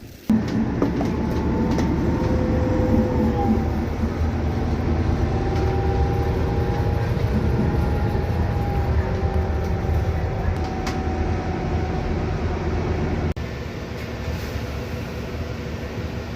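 Steady low drone of a city bus heard from inside, with a faint whine that rises and falls as it drives. It cuts in suddenly and drops a step in level about thirteen seconds in.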